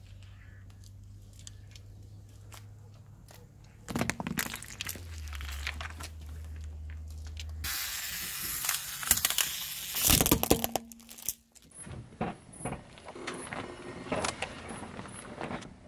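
A car tyre slowly rolling over small objects and crushing them, in a run of short clips: a low engine hum under scattered crackles and cracks, then denser crackling and sharp cracks, loudest about ten seconds in.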